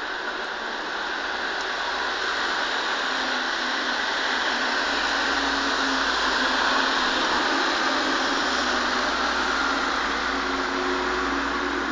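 A low, rolling rumble of thunder swells about halfway through and eases toward the end, over a steady rushing background noise.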